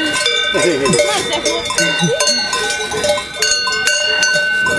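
Cowbells on grazing cattle clanking irregularly, each strike ringing on in a steady metallic tone, at a few different pitches.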